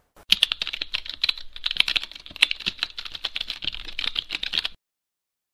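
Typing sound effect: a rapid, uneven run of key clicks as title text is typed out on screen, stopping abruptly about four and a half seconds in.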